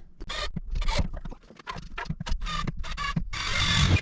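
Handling noises in a workshop: irregular knocks, clicks and scraping, with a louder stretch of rasping noise near the end.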